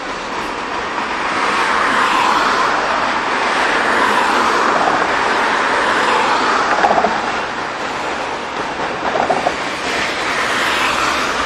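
Road traffic passing on a city street: steady tyre and engine noise that swells and fades as cars drive by, with a few brief ticks about seven and nine seconds in.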